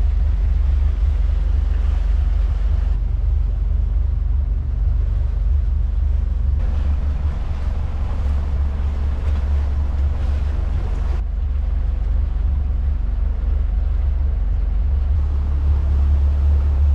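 Motorboat under way: a steady low engine drone with wind buffeting the microphone and water rushing past the hull.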